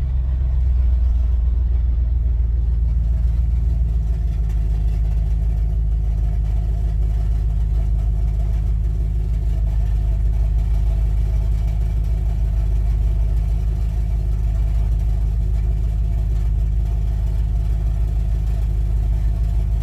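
Car engine idling through a loud exhaust, a steady low drone heard from inside the cabin.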